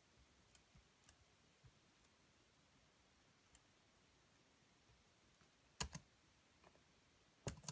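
Near silence, room tone, broken by sharp clicks from working a laptop: a pair about six seconds in and another pair near the end.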